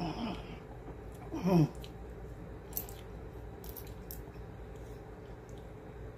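A man's short vocal sounds falling in pitch, a brief one at the start and a louder one about a second and a half in, then a few faint mouth clicks as he tastes hot sauce.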